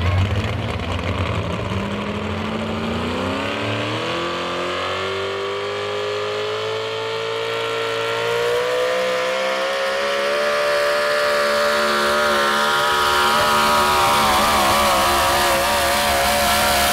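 Supercharged engine of a modified 4x4 pulling truck at full throttle, hauling a weight sled. The pitch climbs steadily as it launches and gathers speed, then holds at high revs, wavering near the end as the truck bogs under the load.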